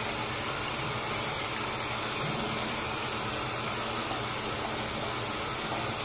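Bathroom sink tap running in a steady stream, the water splashing over a plastic phone case held under it as it is rinsed.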